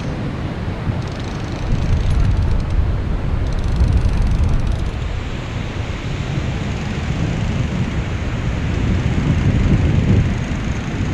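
Wind buffeting the microphone: a steady, low rushing rumble.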